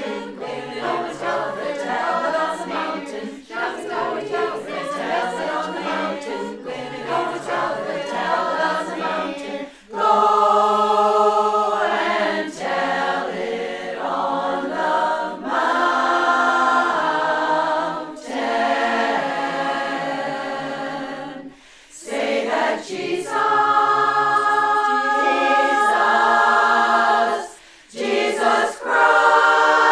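Choir singing a cappella in close harmony. It grows markedly louder about ten seconds in, with a couple of brief breaks between phrases later on.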